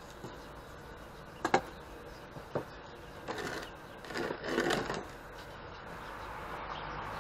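Wooden blocks and boards handled on a wooden workbench: one sharp wood knock about a second and a half in, then a couple of seconds of clattering and scraping around the middle as the boards and a heavy steel chain are shifted across the bench top.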